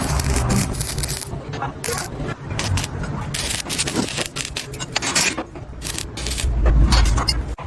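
Repeated metal clinks and scrapes from steel work, irregular and sharp, with a heavier low rumble near the end.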